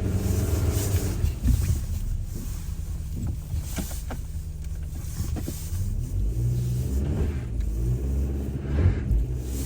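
A car driving, with a steady low engine and road rumble and a few light clicks.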